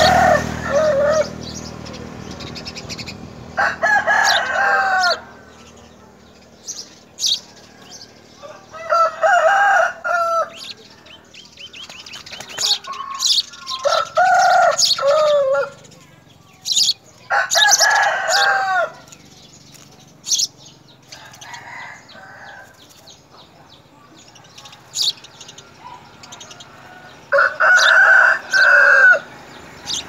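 Chickens calling in loud bursts of a second or two, about six times, with short high chirps of house sparrows at the nest between them.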